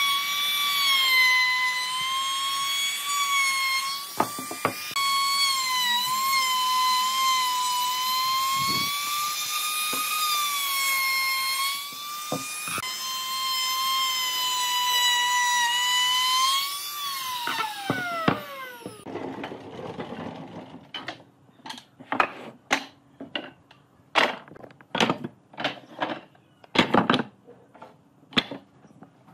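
Compact handheld trim router running with a high whine that wavers a little as it cuts along the edge of a curved wooden table leg. About 17 seconds in it is switched off and its pitch falls away as it spins down. Then comes a series of sharp wooden knocks as cut pieces of wood are set down and stacked.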